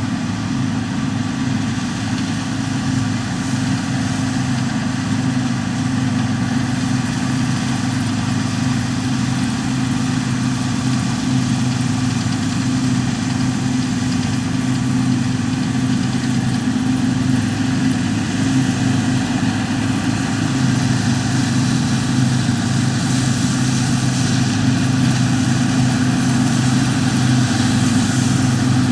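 New Holland TX68 combine harvester running steadily, a low engine drone that grows a little louder toward the end.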